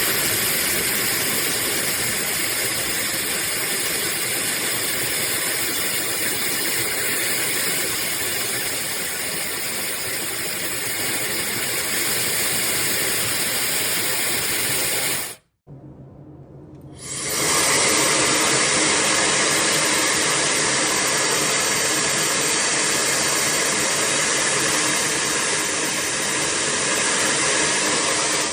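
Labiim high-speed brushless hair dryer running, a steady rush of air with a faint high whine. It cuts off about halfway through, and after a short gap it starts again and runs steadily.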